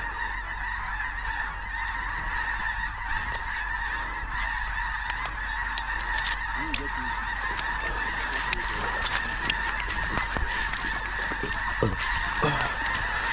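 A large flock of snow geese calling all at once, a continuous dense din of honking. A few sharp knocks sound over it in the second half.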